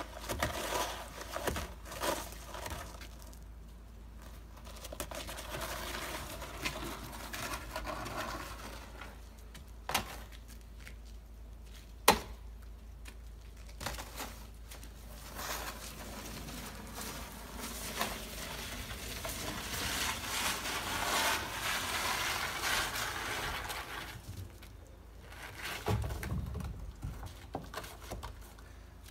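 Orange plastic snow shovel scraping and pushing slush across wet wooden deck boards in uneven strokes, with a couple of sharp knocks of the blade on the boards.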